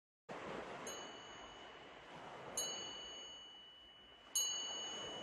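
Quiet opening of a recorded song: a small high-pitched chime struck three times, each stroke ringing on and fading, over a soft rushing wash.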